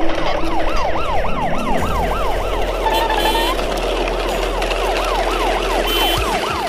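Siren sound, a fast rising-and-falling wail repeating about twice a second, pausing for a couple of seconds midway and then starting again. Under it is a steady rattle of plastic toy truck wheels rolling over paving.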